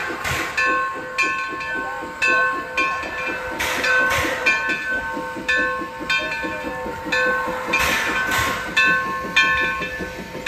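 1913 Lima-built Shay geared steam locomotive pulling away under steam: rapid, even exhaust chuffing with steam hissing from the cylinders, swelling in three bursts about four seconds apart.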